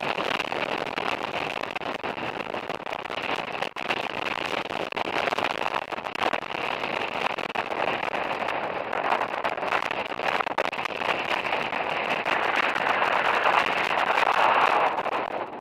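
Ford Raptor pickup's tyres rolling over a loose gravel and rock trail: a steady rush of noise with a dense crackle of stones, louder towards the end.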